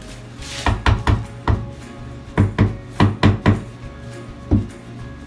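Wall tiles being knocked and tapped to bed them into the tile adhesive: about a dozen sharp knocks in uneven clusters, the last one alone near the end.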